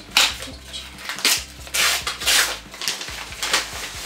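Kraft-paper mailing envelope rustling and crinkling in a series of short, crisp bursts as a hand reaches inside and pulls a book out.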